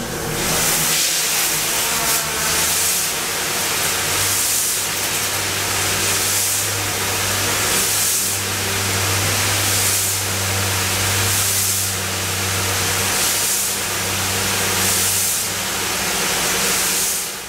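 Industrial drum washer's spray jets blasting water against a drum and the inside of the stainless cabinet, a loud steady hiss that swells in regular pulses a little over a second apart, over a low steady hum.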